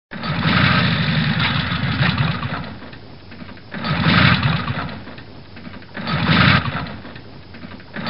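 Motorcycle engine being cranked in three separate attempts, each loudest at the start and fading, without catching and running: the bike won't start.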